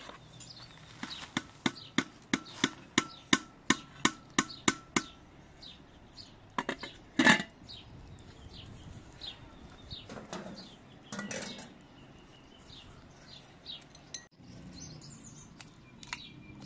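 A metal ladle knocks against a metal cooking pot about a dozen times, roughly three a second, with a slight ring. About seven seconds in comes a single louder metal clank. Birds chirp faintly.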